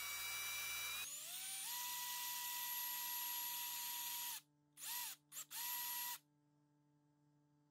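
Cordless drill boring lead-weight holes into a poplar wood lure body. The motor whines steadily, picks up speed about a second in, and stops after about four seconds, then gives three short trigger bursts that spin up and down.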